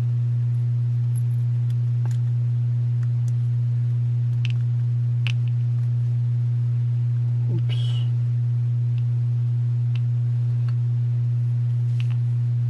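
A loud, steady, low electrical hum with a fainter overtone runs unbroken throughout. Over it come a few faint, small metallic clicks as lock pins are picked out of a dimple-lock core.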